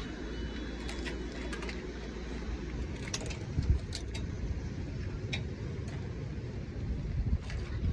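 Steady low outdoor rumble with scattered light clicks and a brief thump a little before halfway.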